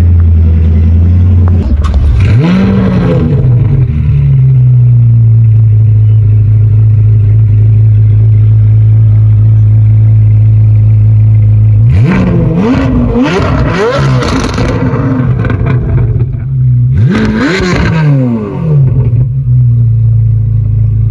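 Chevrolet C8 Corvette Z06's flat-plane-crank V8, fitted with an aftermarket titanium exhaust, idling and being revved. There is one rev about two seconds in, a burst of quick blips a little past halfway, and two more a few seconds later, each dropping back to a steady idle.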